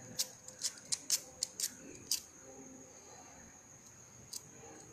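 A quick run of about nine sharp clicks in the first two seconds, then one more click near the end, over a steady high-pitched whine.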